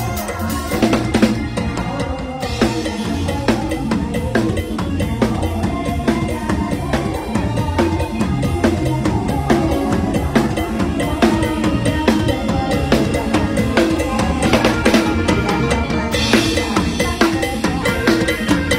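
Mor lam band music with a drum kit playing a busy beat over a stepping bass line and other instruments, growing brighter in the highs near the end.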